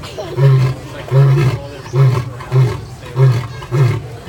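Male African lion roaring: a run of deep, short grunting calls, about six of them, each a little shorter and quicker than the last.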